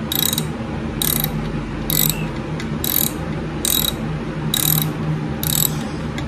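Socket ratchet on an extension and swivel, worked back and forth in short quarter-turn strokes to turn a bolt. Its pawl gives a short burst of clicks on each back-swing, about once a second, seven times.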